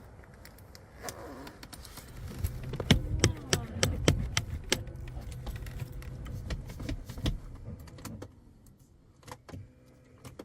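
BMW E46 engine cranking on its starter and struggling to catch. A whine begins about a second in, then a low uneven churning with many sharp clicks runs for about six seconds and stops, leaving a few separate clicks near the end.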